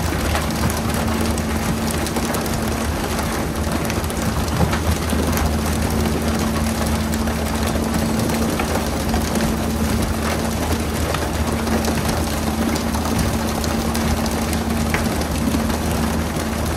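A fishing boat's engine running steadily with a constant low hum, under an even wash of splashing sea water. A few faint knocks come through now and then.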